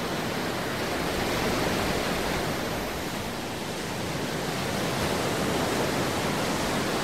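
Sea-and-wind ambience: a steady rush of surf and wind that eases a little partway through and swells again.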